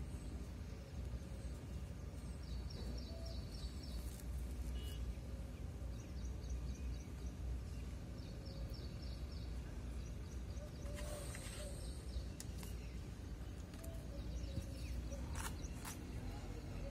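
Steady low outdoor background rumble, with short runs of rapid, high chirping that come and go several times and a few brief clicks.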